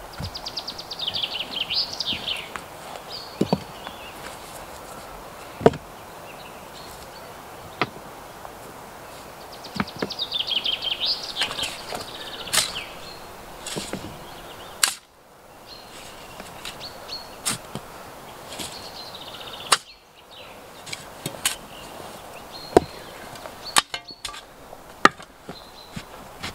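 A steel spade striking and cutting into wet, stony soil, one sharp stroke every second or two. A songbird's rapid trill comes twice in the background.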